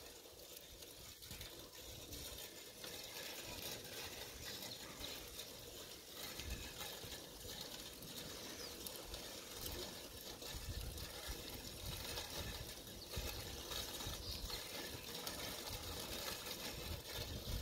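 Faint rolling noise of bicycles on an asphalt street, a child's bike with training wheels among them, with a light mechanical rattle over a steady hiss.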